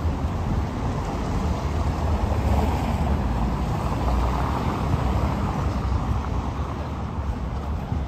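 Car driving along a wet cobblestone street, its tyres on the stones, over steady city street noise. It grows louder a few seconds in and eases off near the end.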